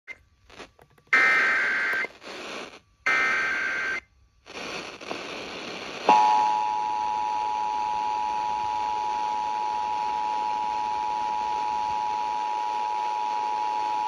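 Emergency Alert System tones from an alert radio at the start of a Required Monthly Test. Two short SAME header data bursts about a second apart are followed a couple of seconds later by the steady two-tone EAS attention signal, which holds on.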